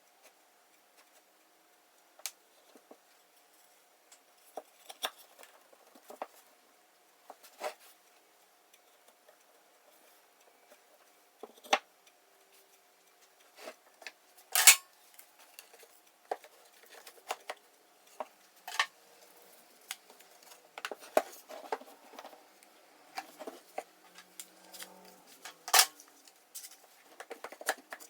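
Scattered clicks, taps and knocks of plywood parts and tools being handled while a lathe sanding disc is assembled, with a couple of louder knocks about halfway and near the end. A faint steady hum runs underneath.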